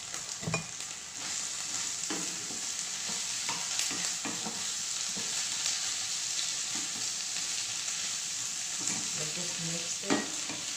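Frozen mixed vegetables steadily sizzling in hot oil in a frying pan, stirred with a wooden spatula that knocks against the pan now and then, loudest about ten seconds in.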